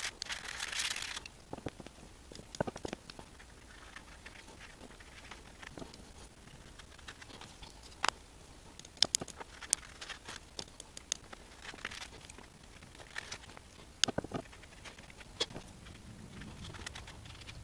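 Quiet scattered taps, clicks and soft brushing as a paintbrush lays watercolor paint over paper, with a short rustle in the first second as something on the desk is moved.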